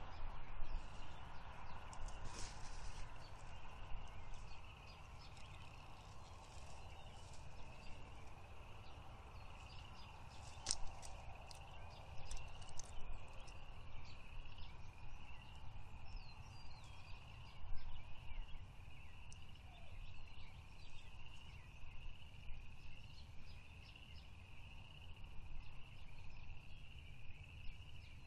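Outdoor ambience: a short, high chirp repeating about once a second over a steady low rumble, with a few scattered sharp clicks.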